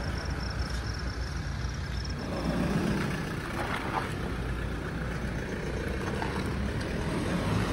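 Engines and tyres of a convoy of SUVs, a Toyota Fortuner among them, moving off past the camera: a steady low rumble.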